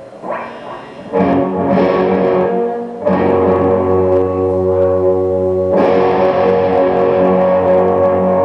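Electric guitar played slowly through an effects unit with some distortion: a chord is struck about every two or three seconds and left to ring.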